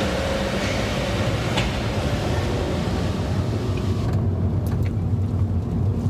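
Steady car engine and road noise heard inside the cabin, a continuous low hum. About four seconds in, the higher hiss drops away while the low hum carries on.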